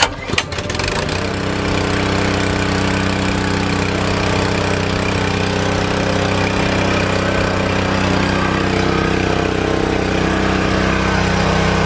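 Westinghouse pressure washer's 212cc OHV four-stroke engine pull-started by its recoil cord: a sharp rattle of the pull, then the engine catches about a second in and runs steadily. The pump is not yet hooked up to water.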